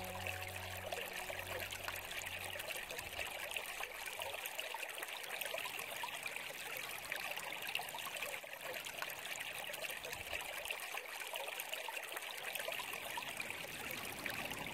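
A small stream trickling steadily. The tail of soft music fades out in the first few seconds.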